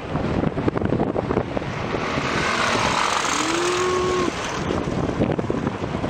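Wind buffeting the microphone, with a jet airliner passing low overhead. Its noise swells to a peak about three seconds in, carrying a brief steady whine, then falls away.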